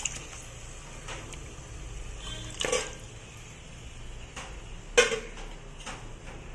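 Mutton pieces tipped into a steel pot of fried masala, with several sharp clinks and knocks of a spoon against the metal pot. The loudest knock comes about five seconds in.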